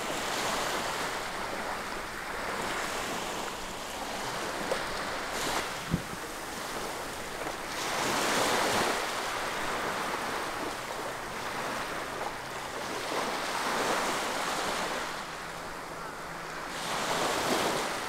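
Sea waves washing in, a rushing noise that swells and eases several times.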